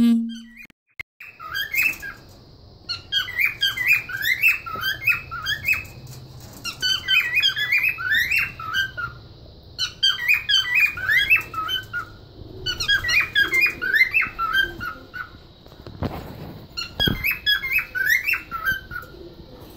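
Cockatiels singing, repeated phrases of rapid chirping, warbling notes, each about two seconds long with short pauses between them. A couple of low thumps come near the end.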